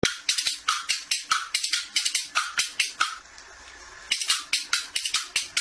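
Rapid, even shaker-like percussion, about six strokes a second. It stops for about a second just after the middle, then starts again.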